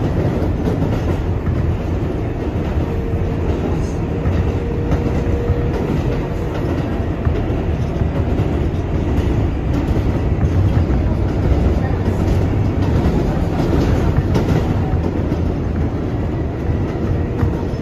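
R188 subway train running between stations, a steady rumble with wheels clicking over rail joints now and then. A faint steady whine holds for a few seconds about three seconds in and returns near the end.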